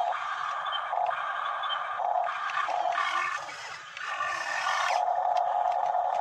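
Small electric motors of radio-controlled toy excavators whining, cutting in and out and changing pitch as the boom, arm and bucket are worked.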